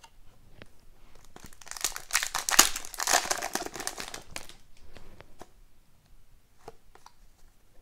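A trading-card pack's wrapper being torn open and crinkled for a couple of seconds, starting about two seconds in. Then light scattered clicks as the cards are slid out and handled.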